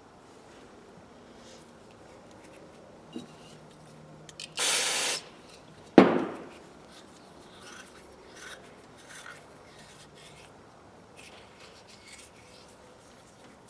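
Light handling clicks and rubbing at a workbench, broken by a loud hiss of about half a second, then a sharp knock that rings briefly, the loudest sound.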